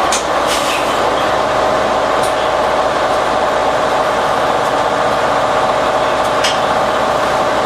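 The Cummins ISL9 diesel of a 2011 New Flyer Xcelsior XD40 transit bus running at a steady pitch, with a few short clicks.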